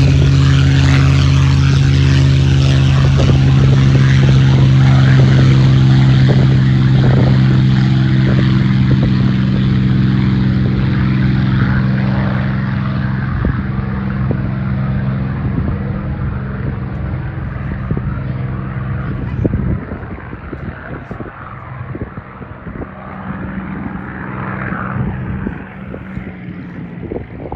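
Supermarine Spitfire's piston engine running at high power for take-off, a loud steady drone that slowly fades as the aircraft moves away. About twenty seconds in the steady engine tone drops out suddenly, leaving a fainter, rougher rumble.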